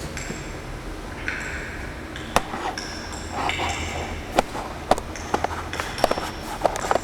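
100,000-year-old ice popping and crackling as it melts and lets out its trapped air: sharp pings and clicks at irregular intervals, coming more often in the second half, over faint held high tones.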